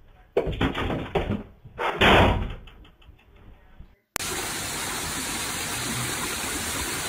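A few knocks and thumps, the loudest about two seconds in; then, about four seconds in, a sudden switch to steady rushing water cascading over stone steps.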